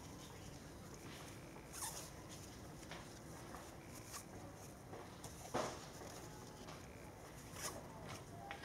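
Faint rustling and crinkling of plastic grafting tape as it is wound and tugged tight around a graft union: a handful of short crackles, the loudest a little past halfway.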